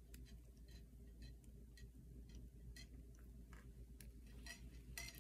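Faint, irregular ticks and drips as a thin stream of hot water from a gooseneck kettle pours into a paper drip-bag coffee filter, over a low steady hum; a few louder clicks come near the end.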